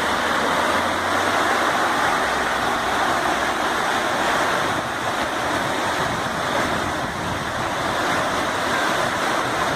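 Steady rush of floodwater from the overflowing Córrego das Almas creek pouring over a flooded street.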